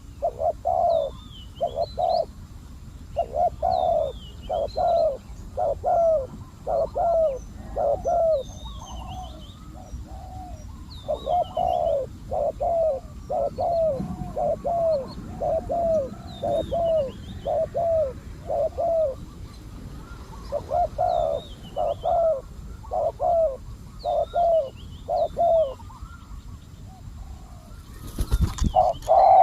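Spotted doves cooing in repeated phrases of low notes, with short pauses between phrases, while a small bird chirps thin, high, wavering notes over them. A brief loud scuffing noise comes about a second before the end.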